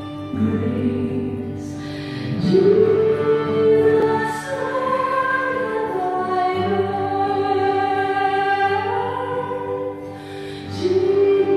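Recorded choral music with slow, held sung notes that glide from one pitch to the next.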